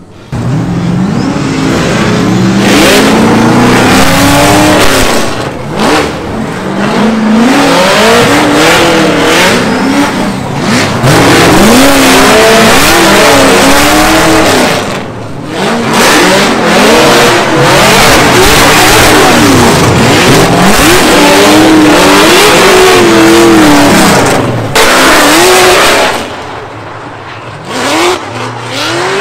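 Drift car engines at full throttle, their revs climbing and falling again and again as the cars slide through the course. The sound drops away briefly twice.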